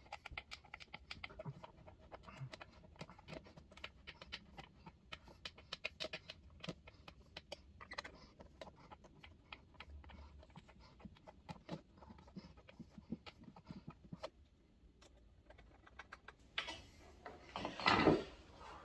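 Irregular small clicks and taps of objects being handled, then a short pause and a louder rustling burst near the end.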